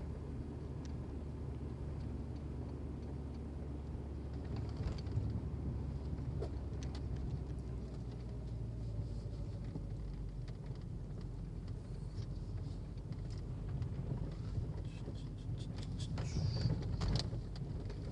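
A vehicle engine running steadily with a low rumble, with a few short clicks and scrapes near the end.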